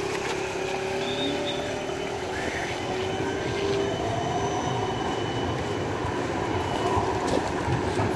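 GVB Amsterdam tram running past at close range on street track: a steady rumble of wheels on the rails, with several drawn-out whining tones from the wheels and drive.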